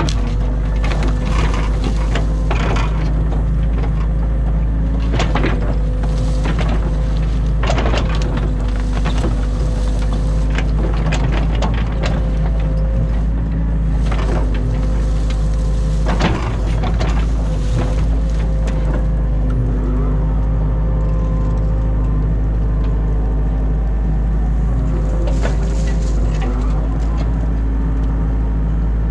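New Holland Kobelco E50.2 mini excavator's diesel engine running steadily under load with a steady hydraulic whine, while the bucket digs silt and brush from a ditch, with scattered knocks, scrapes and crunches of bucket and debris.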